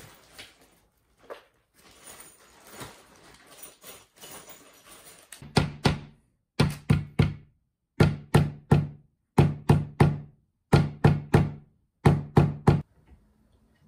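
Repeated knocking on a white IKEA desk leg as it is seated onto its joint in the desk frame, in quick clusters of two to four strikes from about halfway through. Before that there are only faint handling and rustling sounds.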